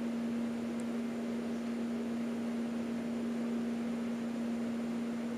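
Steady electrical hum with a faint hiss behind it, holding one low pitch without change.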